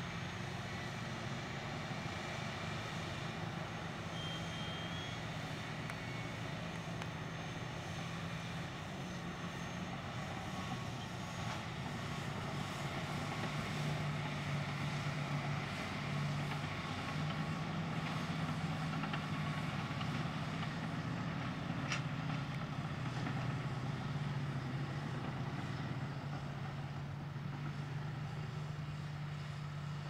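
Diesel engines of heavy Caterpillar earthmoving machines, a crawler bulldozer push-loading a wheel tractor-scraper and a motor grader, running at work: a steady low drone that grows louder about halfway through.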